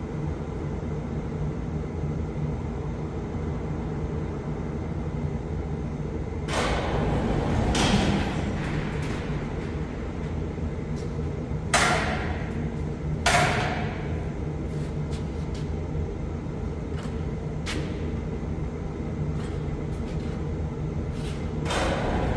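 Kukje AF350 tractor's diesel engine running steadily, broken by several sharp metallic clunks and rattles: a longer one about a third of the way in, two short ones about halfway, and another at the very end.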